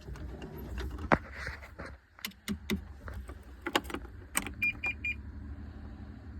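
Sharp clicks and rattles of a key and controls being handled, then three quick high beeps about halfway through, over a low steady rumble. The setting is a Kubota KX61-3 mini excavator that won't start.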